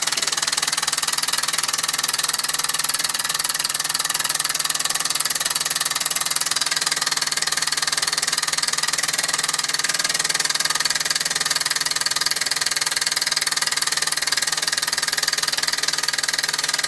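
Mamod SE2 live-steam toy stationary engine running steadily at speed under steam: a loud, continuous hiss of steam and rapid exhaust beats.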